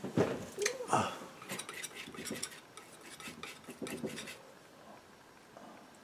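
Steel palette knife clicking and scraping against the palette as oil paint is picked up and worked: a run of quick, light metallic clicks that stops a little past the middle.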